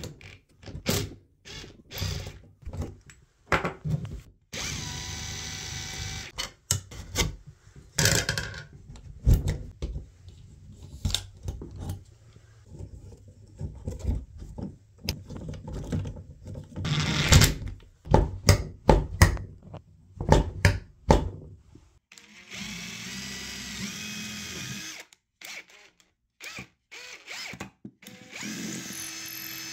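Hand tools clicking and clunking on a shower valve's handle and corroded stem, with a cordless drill whirring in several short runs, the last one driving a screw into a wooden board.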